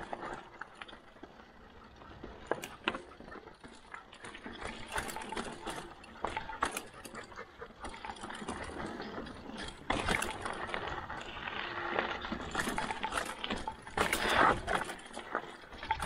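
Mountain bike rolling down a rocky trail: tyres crunching over rocks and gravel, with irregular clicks and rattles from the bike. It gets louder about ten seconds in.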